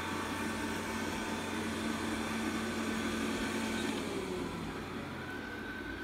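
Robit V7S Pro robot vacuum running on carpet, a steady motor and suction hum. About four seconds in its note drops and a higher whine comes in, as it switches from cleaning to heading back to its charging dock.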